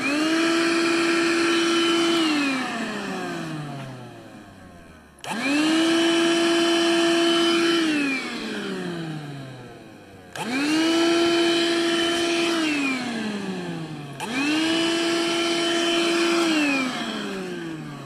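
18-volt cordless battery vacuum cleaner switched on four times in short bursts. Each time the motor spins up to a steady whine, runs for about two seconds, then is switched off and winds down in falling pitch.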